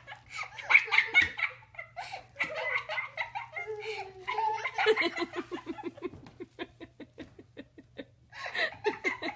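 People laughing, breaking into a run of quick, rapid-fire laughs in the second half, over a steady low hum.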